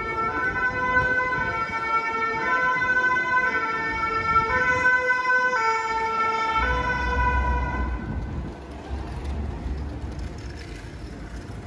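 Fire engine's two-tone siren, the French "pin-pon", switching between a high and a low note about once a second. It fades away about eight seconds in, and a low rumble comes in shortly before that.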